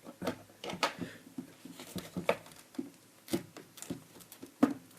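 Hard plastic toy playset parts clicking and knocking as they are handled and pressed together: a string of irregular sharp clicks, the loudest near the end.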